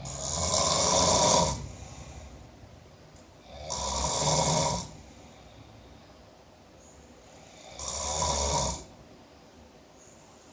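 A person asleep and snoring heavily: three loud, rough snores about four seconds apart, each lasting about a second, with quieter breathing between.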